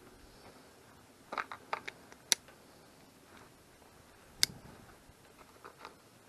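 A quick run of small clicks and rattles about a second in, then two sharp, louder clicks about two seconds apart, with a few faint ticks near the end.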